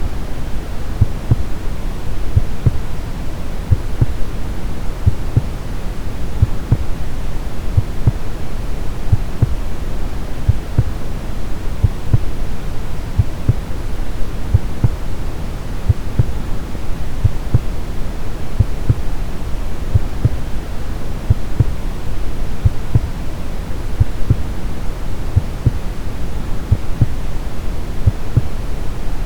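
A steady, deep hiss of brown noise with the regular low thumps of a heartbeat over it.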